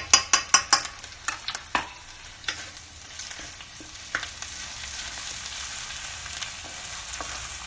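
Onions and ginger-garlic paste sizzling in mustard oil in an iron kadhai while a ladle stirs them, scraping and knocking against the pan. A quick run of scraping strokes comes in the first two seconds, then a steadier sizzle with only occasional knocks.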